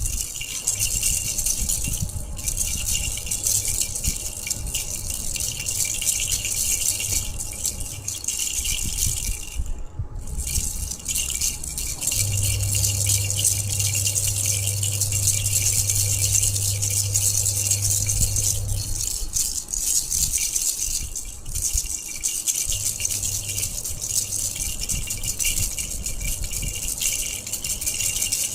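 Baby rattle shaken continuously in a fast, dense shake, with brief breaks about two, ten and twenty-one seconds in. A low steady hum sits underneath, strongest in the middle.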